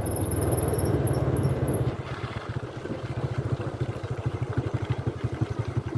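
Diesel engine of heavy farm or earth-moving machinery running. It is steady and louder at first, then drops about two seconds in to a fast, even chugging, as at idle.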